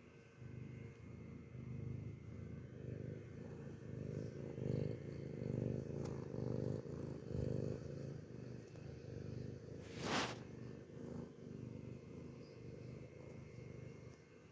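Domestic cat purring close up, a low rumble swelling and fading about once a second. A short rushing noise breaks in about ten seconds in.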